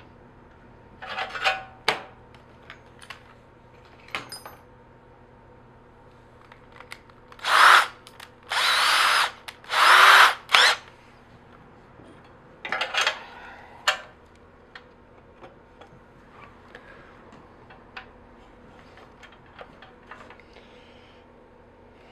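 Power drill run in three short bursts, each about a second long, with light knocks and clicks of parts being handled before and after.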